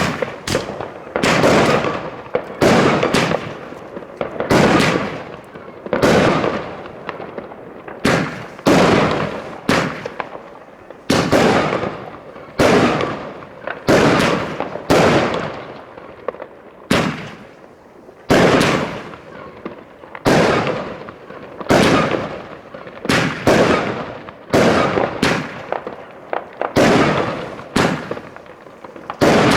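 Fireworks going off in a steady series of loud bangs, about one every one and a half seconds, each bang's echo dying away before the next.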